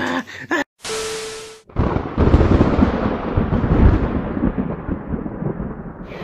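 A short burst of hiss with a steady low hum, then a loud, long rumble about two seconds in that dies away over about four seconds, its high end fading first.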